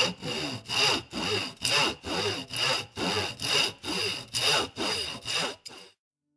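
Hand saw cutting wood in steady back-and-forth strokes, a little over two a second, stopping abruptly near the end.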